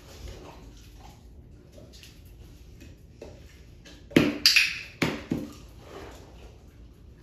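A puppy's paws and claws clattering on a small wooden platform on a vinyl floor: a quick run of loud sharp clacks about four seconds in, with lighter claw taps around it.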